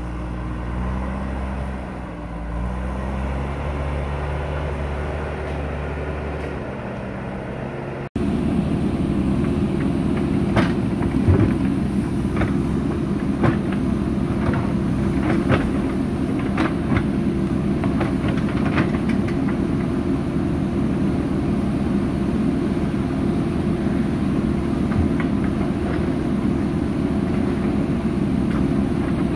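JCB backhoe loader's diesel engine running under working load, its pitch rising and falling in the first part. Then it runs steadily while the digging arm and bucket work, with a run of sharp clanks and knocks for several seconds as the bucket meets earth and stones.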